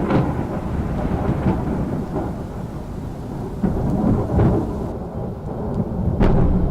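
A deep rumbling noise with scattered sharp crackles and cracks, swelling and easing, which cuts off abruptly at the end.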